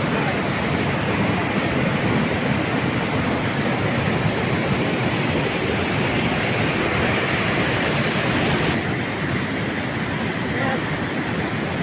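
Waterfall: a steady rush of falling water. The high hiss drops away suddenly about nine seconds in.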